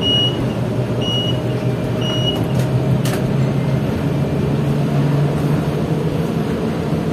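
Inside a moving bus: a low, steady engine drone that rises a little in pitch about halfway through as the bus speeds up. A high beep repeats about once a second for the first two seconds, and there is a single click about three seconds in.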